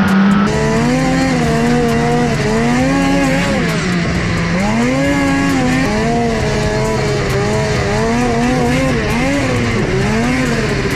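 Snowmobile engine revving up and easing off again and again as the throttle is worked, its pitch climbing and falling about once a second over a steady rushing noise.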